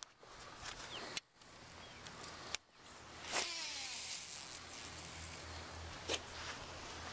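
Fishing rod and reel on a cast: a few clicks, then about three and a half seconds in a sudden swish and a zipper-like whir as line runs off the reel, followed by steady low handling noise.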